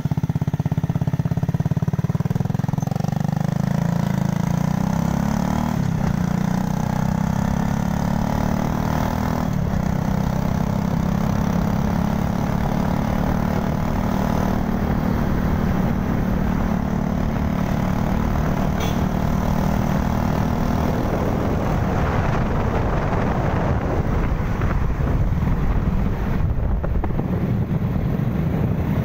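Motorcycle engine running steadily while riding, its note shifting up and down a few times, with low rumble from the ride.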